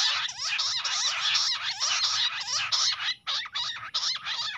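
Bush quail calling in a fast, continuous chorus of short sweeping notes, several a second, with a brief break about three seconds in.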